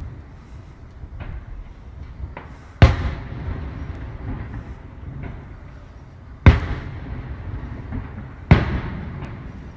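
Fireworks shells bursting overhead: three loud bangs a few seconds apart, each trailing off in an echoing tail, with fainter pops between them over a low background rumble.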